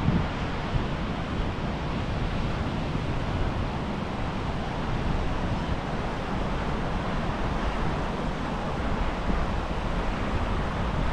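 Sea surf washing onto the beach, a steady rush of noise, with wind rumbling on the microphone.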